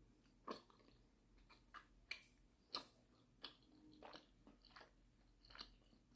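Faint close-up chewing of a mouthful of dumpling, with soft, irregular wet mouth smacks about every half second to second.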